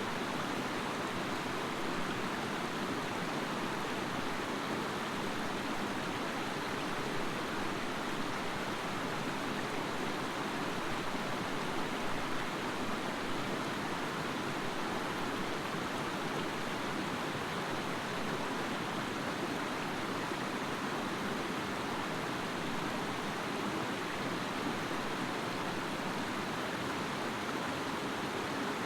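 Creek water rushing over rocks: a steady, even rush with no change throughout.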